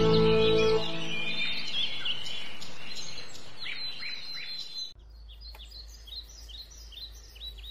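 Small bird chirping, short high calls repeated about two or three times a second, as background music fades out.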